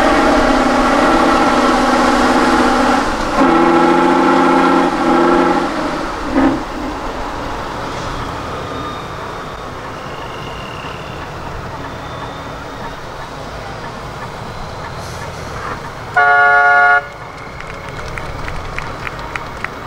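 Tatra 813 8x8 trial truck's engine running hard at steady high revs for about six seconds, then dropping to a quieter rumble. A short horn toot sounds about sixteen seconds in.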